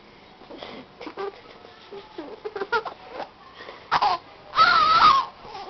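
A baby vocalising: faint clicks and small sounds at first, then a short cry about four seconds in and a longer high, wavering cry just after, typical of an infant fussing.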